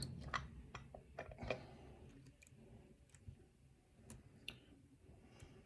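Faint, irregular metallic clicks and ticks of a pick and tension wrench working inside a pin-tumbler challenge lock (Den Brass 'Dead Spool'): a cluster of light clicks in the first second and a half, then a few scattered ticks.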